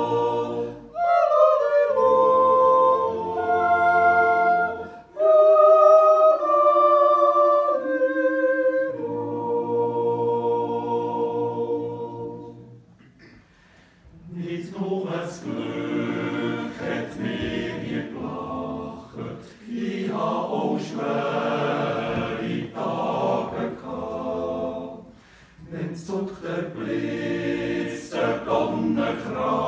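Men's yodel choir singing a cappella in several parts. About halfway through, the singing dies away into a short pause, then the full choir comes back in, louder and denser.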